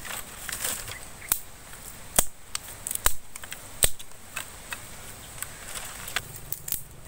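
Dry twigs snapping and clicking as they are broken and laid on a pile by hand, with a few sharp snaps about a second apart mid-way and lighter crackling and rustling between.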